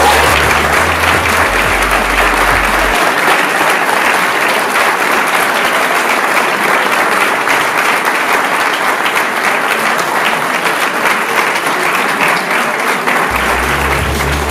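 An audience applauding: dense, steady clapping from a large seated crowd that keeps going without a break.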